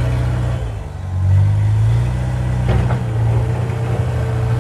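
Tractor engine running steadily, dipping about a second in and then picking up again, with a brief click near the middle.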